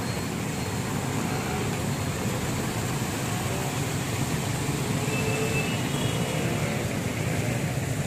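Steady road traffic on a flooded street: the engines of motorbikes, auto-rickshaws and cars running as they move through standing water, a continuous low drone.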